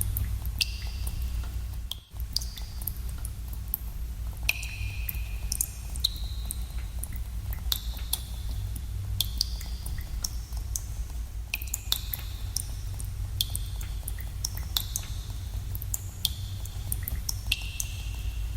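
Water drops falling into pools in a cave: irregular plinks, several a second, each a sharp click with a short ringing tone at varying pitches, over a steady low rumble.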